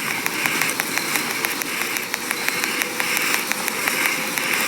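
Steady rain falling, with many small drops tapping irregularly.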